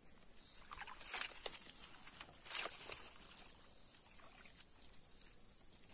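Quiet marsh ambience: a steady high-pitched insect drone, with a few faint soft noises about one second and two and a half seconds in.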